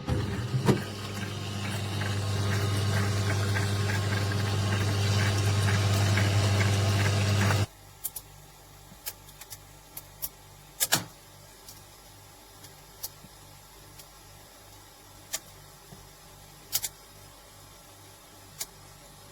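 Countertop ice maker running: a steady low hum with rushing water over it, which cuts off suddenly after about eight seconds. A faint low hum remains, with scattered sharp clicks.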